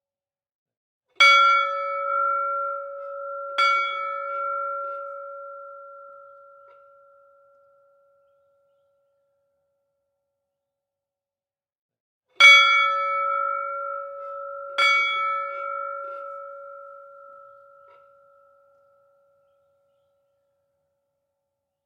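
A bell struck twice, the strikes about two and a half seconds apart, each ringing with a steady tone and fading away over several seconds. After a silence of a few seconds the same pair of strikes comes again.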